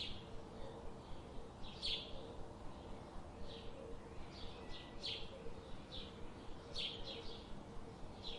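Small birds chirping: short, high chirps repeated irregularly, about a dozen in the span, over a steady background hiss.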